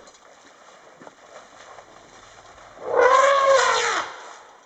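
African elephant trumpeting once, a loud call of about a second that rises and then falls in pitch. It is given with ears spread and trunk raised, as a threat display toward the vehicle.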